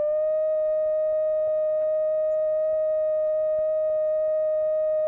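A steady electronic test tone from a sound generator's loudspeaker, held at one pitch with a few overtones, used to set Helmholtz resonators resonating when it matches their natural frequency.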